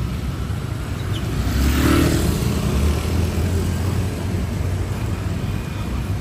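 Motor scooters running in street traffic on a wet road, with a low steady engine hum; one vehicle passes close, loudest about two seconds in, with a rise and fall of engine and tyre noise.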